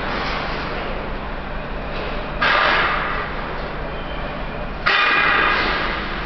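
Steady machine hum of the freezer's refrigeration and evaporator fans, with a ringing bell-like signal that sounds suddenly and fades over about a second, twice, about two and a half seconds apart.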